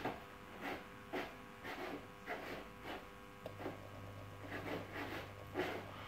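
Neff dishwasher's internal water system running, faint: a soft swish repeats about twice a second over a steady faint hum. A low steady hum comes in about halfway through.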